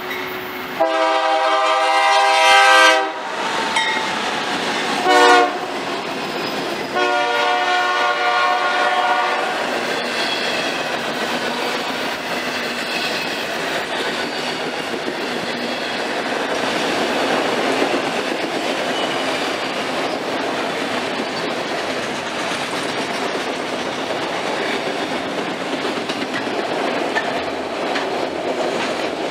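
Freight locomotive horn sounding a long blast, a short blast and another long blast. The train then passes close by, its autorack cars rolling past with a steady rumble and the clickety-clack of wheels over the rail joints.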